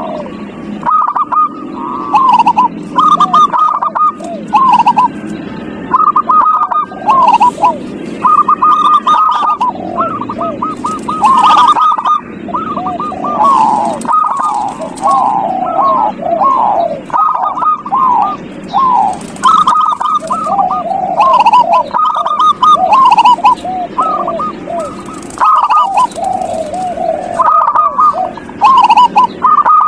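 Zebra doves (perkutut) cooing: short phrases of rapid, pulsed notes, repeating and overlapping one another. The recording is a perkutut lure (pancingan), played to get a caged dove to sing.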